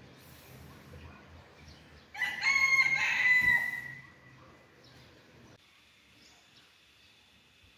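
A rooster crowing once, starting about two seconds in and lasting about two seconds, with a long drawn-out final note that tails off downward.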